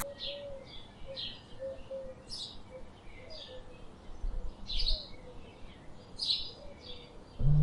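Small birds chirping in short repeated notes, about two a second. Near the end a loud, steady low hum starts abruptly.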